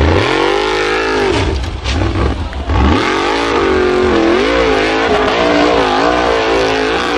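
Formula Offroad hill-climb buggy's engine revving hard, its pitch rising and falling over and over as the wheels spin in loose dirt on a near-vertical slope, with a short drop in revs about three seconds in.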